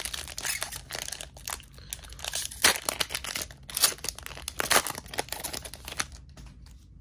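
Foil-lined trading card booster pack wrapper being torn open and crinkled by hand: a run of crackling, crinkling noise broken by several sharper, louder rips.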